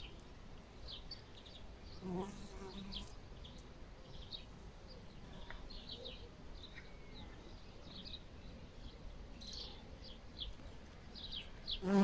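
Honeybees buzzing, a low hum that passes close about two seconds in and again near the end, over frequent short, high bird chirps.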